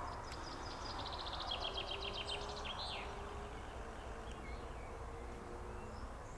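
A songbird sings a fast run of high repeated notes that falls slightly in pitch over about two seconds, then gives one rising-and-falling call, over a faint steady low hum. Right at the very end comes the sharp crack of a PCP air rifle shot.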